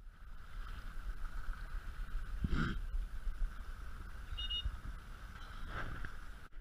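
Wind rumbling on the microphone over open water lapping at a marsh shore, with two brief soft rustles, one about two and a half seconds in and one near the end.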